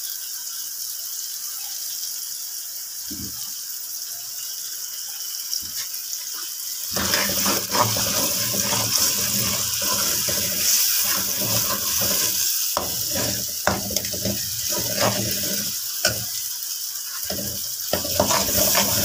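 Tomato and chilli masala sizzling in hot oil in a metal pot. From about seven seconds in the frying gets louder, with frequent clinks and scrapes as a steel ladle stirs against the pot.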